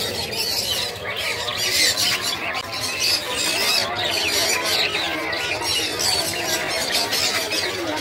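Many caged budgerigars and finches chattering and chirping at once, a dense, continuous run of high, quick chirps and squawks.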